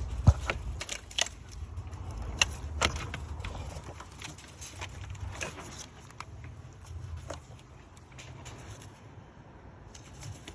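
BMW N55 turbocharged inline-six idling with a steady low rumble, checked for an occasional slight start-up misfire on cylinders 5 and 6 from rain water on the ignition coils. Scattered sharp clicks sound over it, most of them in the first half.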